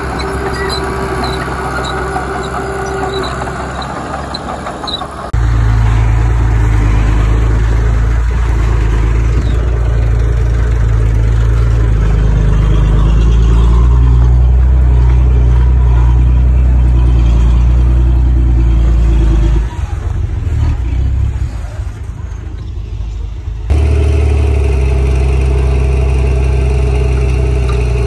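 Diesel engines of earthmoving machinery running with a steady low rumble. The sound changes abruptly three times, about five, twenty and twenty-four seconds in, and is loudest and deepest in the long middle stretch. A light regular ticking is heard in the first few seconds.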